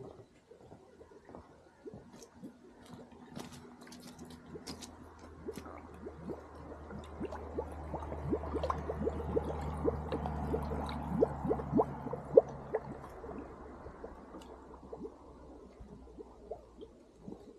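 Carbon dioxide from a mofette bubbling up through a shallow pool of water: a stream of small gurgling pops that swells to its loudest around the middle and then dies away.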